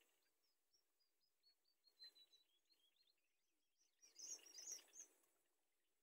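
Faint rapid series of thin, high peeping calls from nestlings at the nest. About four seconds in, a louder cluster of peeps comes with a rustle of dry nest grass, lasting about a second.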